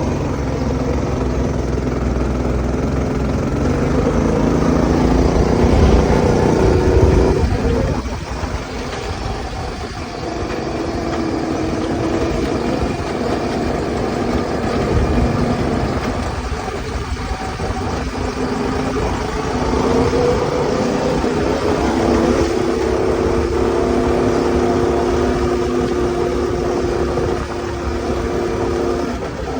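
Small go-kart engine running on a newly fitted 30 mm carburetor, its pitch rising and falling as the throttle is worked. It is loudest about six seconds in, drops back at about seven and a half seconds, and picks up and holds a steadier pitch from about twenty seconds on.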